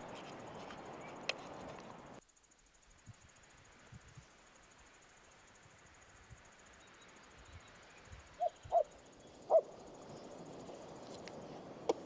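Faint outdoor background, nearly silent for a moment about two seconds in, with a few short high-pitched animal calls near the end.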